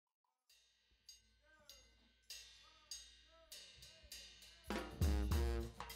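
Instrumental background music: drum and cymbal strikes that grow steadily louder, then the full band with a strong bass beat comes in near the end.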